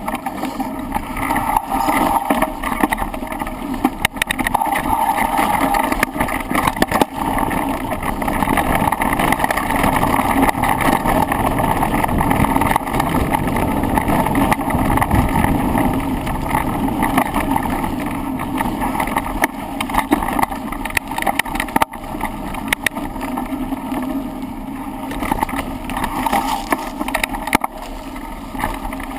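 Handlebar-mounted camera on a bicycle riding down a trail: continuous tyre and ground rumble with constant small rattles and knocks coming up through the bars, plus wind on the microphone.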